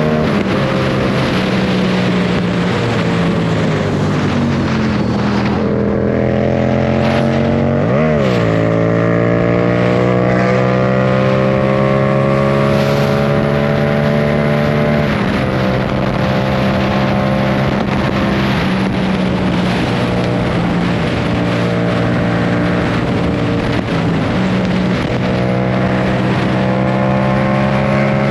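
Motorcycle engines and exhausts running under steady engine tones, with pitch climbing several times as the throttle is opened. There is a sharp quick blip of the revs about eight seconds in, and the climbing note cuts off suddenly about halfway through.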